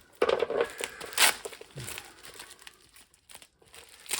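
Packaging crinkling and rustling in irregular bursts as items are unwrapped from a parcel, loudest in the first half-second and again about a second in, then fainter.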